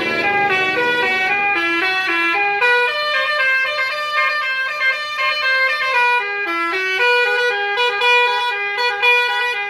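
Bus 'telolet' musical air horn playing a quick tune of stepped, held notes, one pitch after another without a break.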